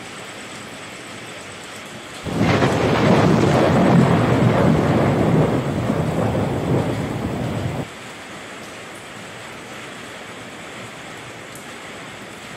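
Steady rain falling, then about two seconds in a loud crack and rumble of thunder lasting about five seconds that cuts off suddenly, leaving the rain again.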